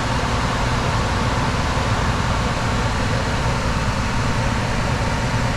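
Old Lennox HVAC system running with a steady hum and a rush of air.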